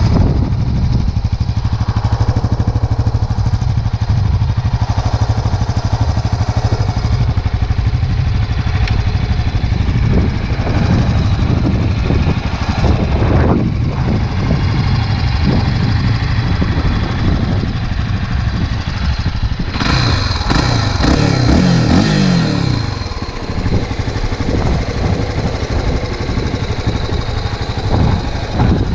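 A Honda Tornado single-cylinder motorcycle engine idling steadily. About twenty seconds in it is revved briefly, and the pitch falls back to idle.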